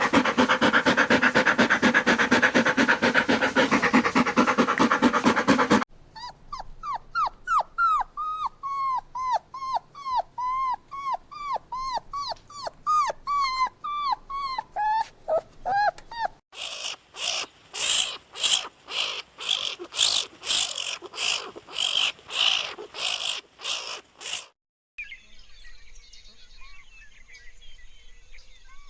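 A run of separate farm-animal sound clips in which dog vocalisations dominate. First comes about six seconds of one continuous dense call, then ten seconds of short repeated calls. After that come about eight seconds of loud sharp calls in steady succession, and finally a few seconds of faint outdoor background.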